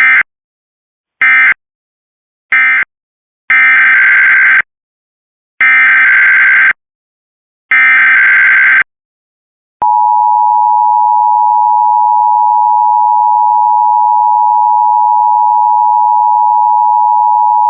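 Emergency Alert System digital data bursts and attention signal. Three short screeching bursts (the end-of-message code), then three longer one-second header bursts, and about ten seconds in the steady two-tone EAS attention signal (853 and 960 Hz) starts and holds to the end.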